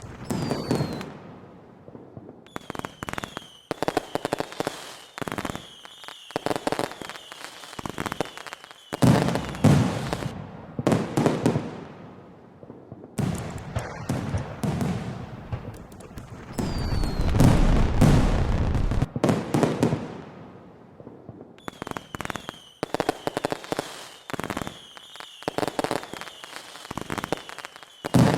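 Fireworks going off: clusters of rapid crackling bangs in bursts with short gaps between them, and a thin high whistle under some of the crackle. The loudest moment is a deep rumbling boom about two-thirds of the way through.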